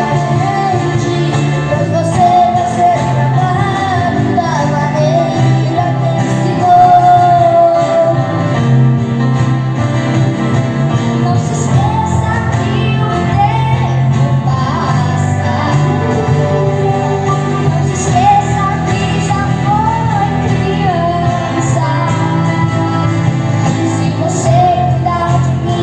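A choir singing with instrumental accompaniment, the melody carried by voices over a steady low backing.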